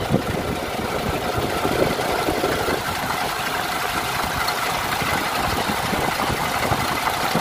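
MAN TGA truck's common-rail diesel engine idling steadily and smoothly, just after a new fuel metering unit and fuel filters were fitted to cure an EDC 03779 loss-of-power fault.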